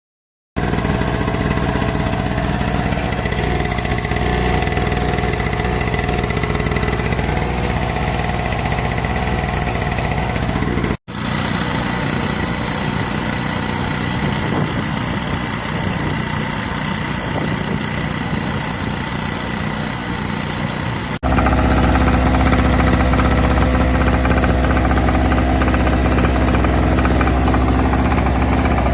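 Aceup Energy 1,200W portable gas generator running steadily, in three spliced stretches that cut abruptly about 11 and 21 seconds in. The last stretch is louder.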